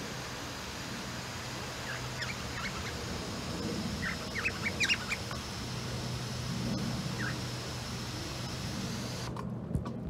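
Cockatiels giving short chirps over the steady hiss of a water shower: a few chirps about two seconds in, a quicker run around four to five seconds, one more near seven seconds. The hiss of the spray cuts off near the end.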